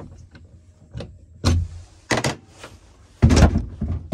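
Knocks and clunks of a camper's drop-down bunk bed being lowered and adjusted by hand: a thump about a second and a half in, two quick clicks, then the loudest, heavier thump near the end.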